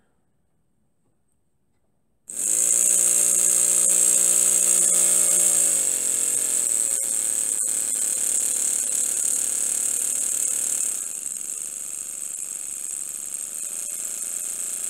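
Miniature brass three-cylinder single-acting steam engine running fast on compressed air: a loud hiss of air over a steady, high buzzing whir from the engine. It starts abruptly about two seconds in. Its pitch drops a little around six seconds in and then holds, and the sound eases slightly near eleven seconds.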